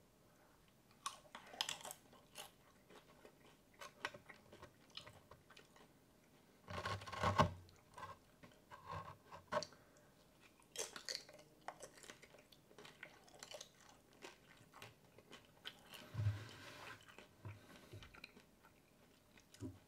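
A person crunching and chewing cheese-covered tortilla chips from loaded nachos, in irregular bites and chews, loudest about seven seconds in.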